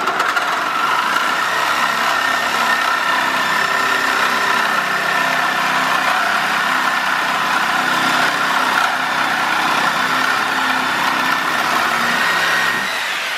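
Cordless drill with a socket driving a half-inch lag bolt into a wooden beam. The motor runs steadily under load and stops shortly before the end.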